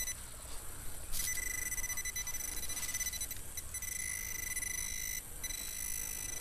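Handheld metal-detecting pinpointer probed into a dug hole, giving a steady high-pitched alert tone that comes on with a click about a second in and breaks off briefly near the end: it is signalling metal near its tip.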